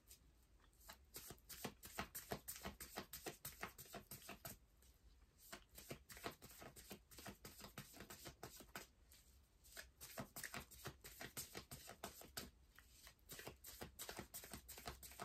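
A tarot deck being shuffled by hand: soft, rapid card flicks and slaps in runs of a few seconds, with short pauses between them.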